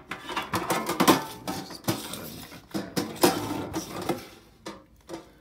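Items being lifted out of a metal collector's tin: irregular clinks, knocks and scrapes of handling, the loudest about one second in and again about three seconds in, dying away near the end.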